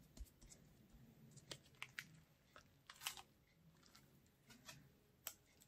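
Faint, scattered sticky crackles and clicks as a canvas is pressed into wet acrylic paint spread over bubble wrap and then peeled back off it.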